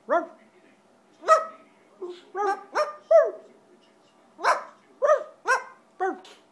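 Scarlet macaw giving about ten short, loud calls in irregular bursts, several of them dropping in pitch as they end.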